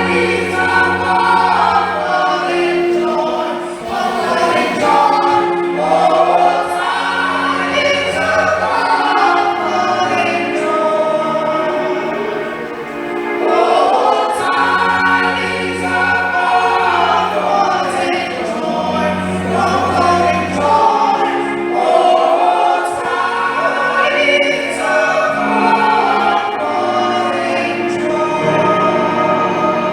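Church choir singing in parts over long, held bass notes from the accompaniment.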